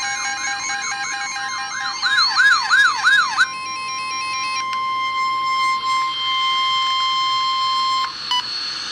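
A siren-like warble sweeping up and down several times a second over steady tones. About three and a half seconds in it gives way to one steady high tone, the NOAA Weather Radio 1050 Hz warning alarm tone, which stops shortly before the end.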